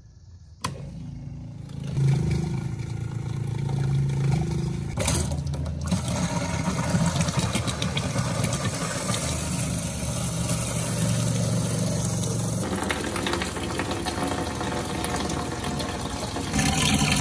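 A 12-volt RV water pump is switched on with a click under a second in and runs with a steady hum while water flows from the galley sink faucet. Near the end comes louder splashing of water pouring into a plastic bucket.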